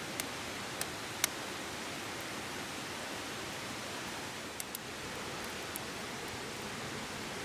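River water running steadily, a constant rushing hiss, with a few sharp clicks about a second in and again around four and a half to six seconds in.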